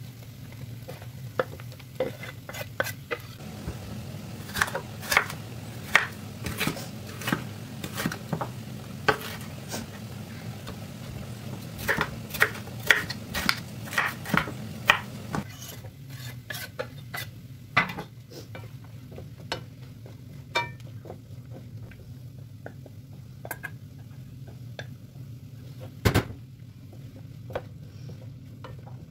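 Vegetables frying in a pan, with sharp wooden knocks as they are pushed in and stirred with a wooden spatula, and a kitchen knife chopping a red bell pepper on a wooden cutting board in a quick run of strokes in the middle. A steady low hum sits underneath, and one loud knock comes near the end.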